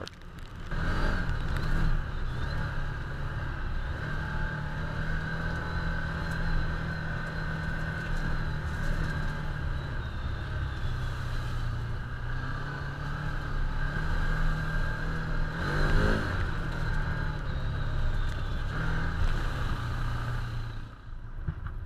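Can-Am Commander 1000 side-by-side's V-twin engine running under way, heard from the driver's seat, its engine speed rising and falling as it drives, with tyre and wind noise on a wet gravel trail.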